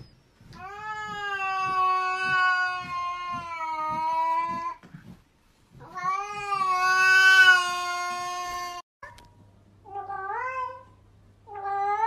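Cat yowling: two long drawn-out caterwauls of a few seconds each, the warning yowl of a cat facing off another cat. After a cut, a different cat gives two short meows that rise in pitch near the end.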